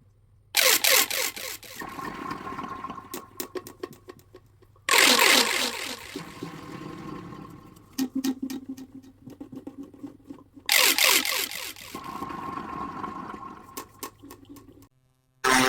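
Plastic pop tubes being stretched and squashed: three loud bursts of rapid crackling pops, each settling into quieter rattling with a faint hum of tone, and a short sharp burst right at the end.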